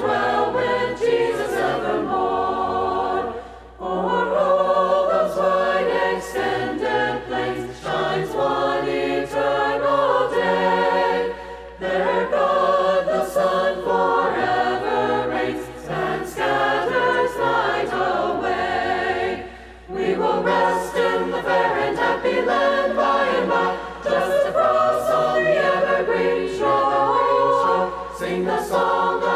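A choir singing a hymn a cappella, in sung phrases with short breaths between them.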